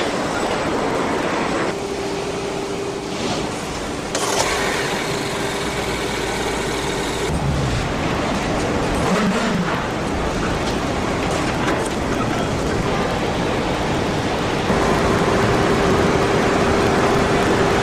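Car assembly line machinery: a steady industrial hum and clatter with a few sharp knocks. The mix of sounds changes abruptly several times.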